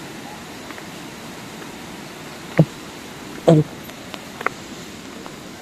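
Steady rushing of river water, with two short loud thuds about two and a half and three and a half seconds in, and a few faint clicks.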